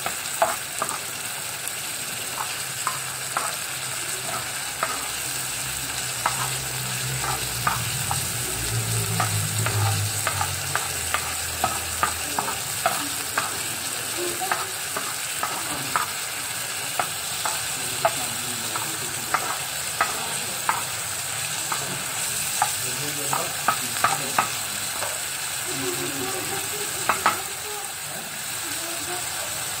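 Chopped onions sizzling in ghee in a pan while they brown, stirred with a spatula that scrapes and clicks against the pan at irregular moments over the steady frying hiss.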